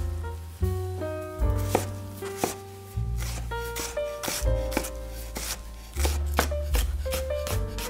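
Chef's knife chopping a red onion on a bamboo cutting board: a quick, irregular run of sharp knocks as the blade meets the board. Background music with a plucked-sounding melody and a deep bass line plays under it.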